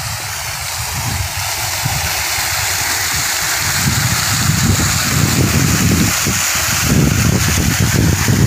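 Water jetting high under strong pump pressure from an upright outlet on a plastic irrigation pipe and splashing down into the flooded field, a steady rushing spray that grows louder over the first few seconds.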